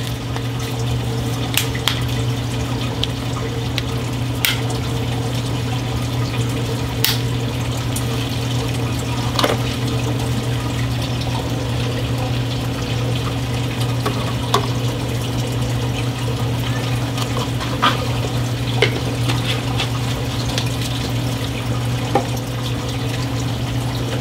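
Reef aquarium sump: water running steadily, with a low pump hum underneath. Brief clicks of plastic reagent bottles and caps being handled come every few seconds.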